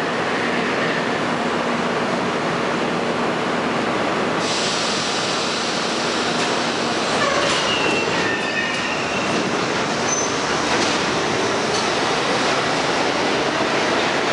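R-32 subway train with Westinghouse 1447-C traction motors pulling out of the station, starting to move a few seconds in and gathering speed as its cars run past. Steel wheels rumble and clatter on the rails, with a brief squeal about halfway through.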